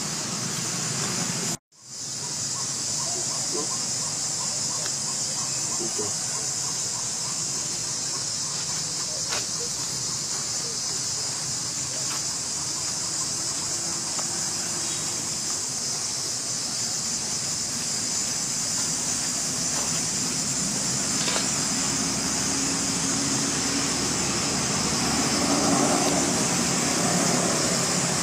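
Steady, high-pitched insect chorus drone, which cuts out briefly about two seconds in.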